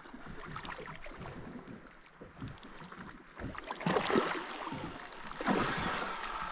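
A large hooked pike thrashing at the surface, splashing water in two bursts about four and five and a half seconds in.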